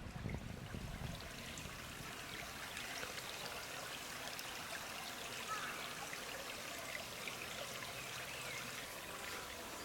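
Running water, a stream trickling steadily, with faint small ticks over it.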